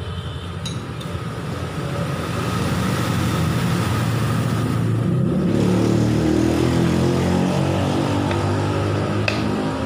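A motor vehicle engine running, growing louder and rising in pitch from about two seconds in, then easing off near the end, with a single click shortly before the end.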